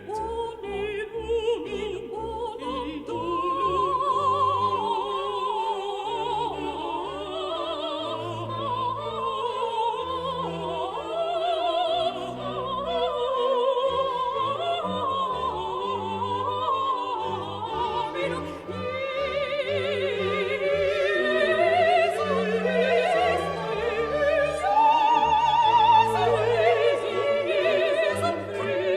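Background music: an operatic voice singing with wide vibrato over orchestral accompaniment.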